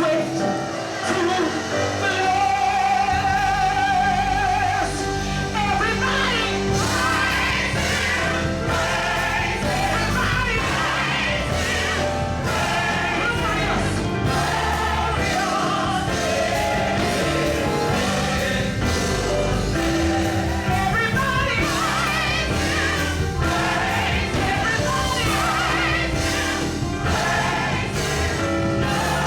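Live gospel music: a vocal group singing with a full band, steady beat and bass.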